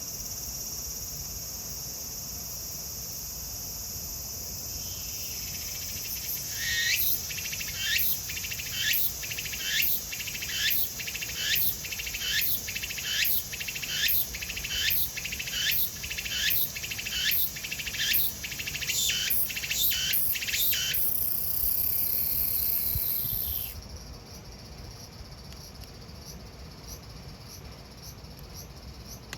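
Cicadas singing in summer heat: a steady high drone, with one loud cicada starting a high pulsing call about a fifth of the way in. Its pulses come a little over once a second, quicken, and merge into a steady buzz that stops suddenly about four-fifths of the way through.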